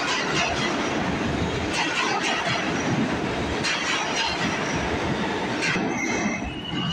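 New York City subway train pulling away into the tunnel: a steady rumble of steel wheels on rail, with sharp clacks as the wheels cross rail joints, dropping off briefly near the end.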